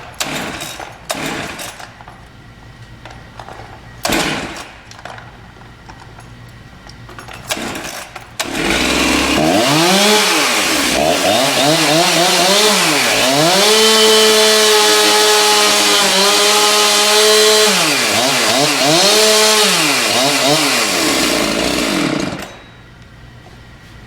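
A few scattered knocks, then a Stihl chainsaw runs loudly for about fourteen seconds. Its engine revs up and down with repeated dips in pitch and holds steady at high revs in the middle. It cuts off abruptly near the end.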